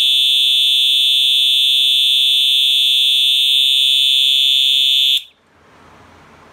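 FCI HES/STW three-tone fire alarm horn sounding a loud, steady, high-pitched continuous tone, which cuts off suddenly about five seconds in as the alarm is shut off.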